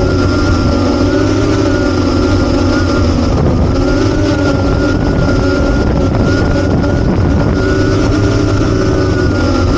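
An 8-inch FPV quadcopter's brushless motors (T-Motor F90, 1300 KV) and propellers whining steadily in flight. The pitch drifts slowly up and down as the throttle changes, over a rush of air noise.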